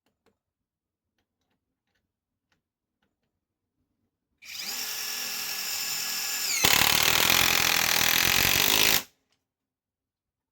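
Greenworks Pro mid-torque cordless impact wrench driving a fastener. About four and a half seconds in, its motor starts with a steady whine. Around two seconds later it turns louder and rougher as the hammer mechanism begins impacting, then it stops abruptly.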